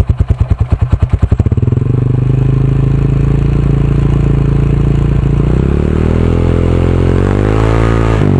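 SS250 motorcycle engine, heard close at the exhaust with the rear wheel spinning on a stand. It starts at idle with loud, even exhaust pulses, then revs to a steady higher note about two seconds in. Its pitch rises further from about halfway and drops back to idle just before the end.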